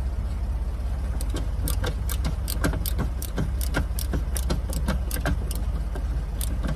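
A hand driver turning in a small 8 mm screw on a truck door panel: a string of sharp, irregular clicks, about two to three a second, starting about a second in, over a steady low hum.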